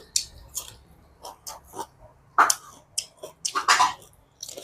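Close-up eating sounds of a person chewing and crunching tam khanom jeen, spicy pounded salad with rice noodles and fresh vegetables: irregular short crunches, the loudest about two and a half and three and a half seconds in.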